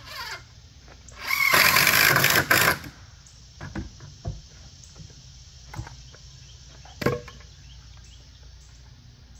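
Cordless drill driving a screw into a wooden deck railing in one loud run of about a second and a half, followed by a few light knocks and clicks.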